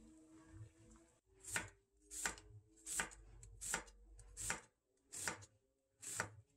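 Kitchen knife slicing through a white onion and knocking on a wooden cutting board, seven even cuts about one every three-quarters of a second, as the onion is thinly sliced.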